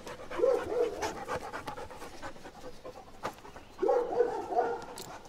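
A dog panting: a few quick breaths near the start and a louder run of breaths about four seconds in.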